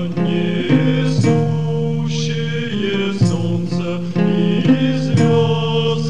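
Music from a 1999 Slavonic pagan black metal demo: a slow passage of sustained chords that change about once a second, each change opening with a sharp attack.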